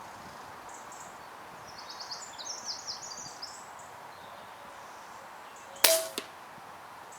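A single air rifle shot: one sharp crack near the end, followed a moment later by a second, softer knock. Earlier, a small bird chirps a quick run of high notes.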